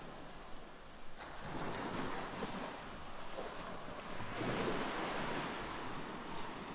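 Mediterranean sea waves breaking and washing in, swelling about a second in and again around four and a half seconds, with wind on the microphone.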